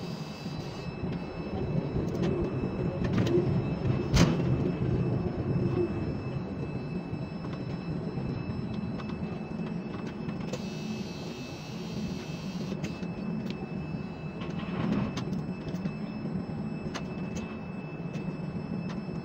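Ship-to-shore container crane's hoist and trolley drives running as a steady machinery hum and rumble heard in the operator's cab. There is a sharp click about four seconds in and a burst of hiss from about ten to thirteen seconds in.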